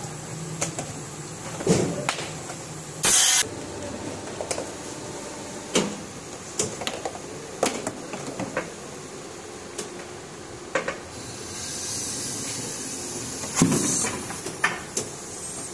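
Blow-moulding workshop noise: short bursts of compressed-air hiss, one about three seconds in and a longer one near the end that ends in a louder burst, amid scattered sharp clicks and knocks.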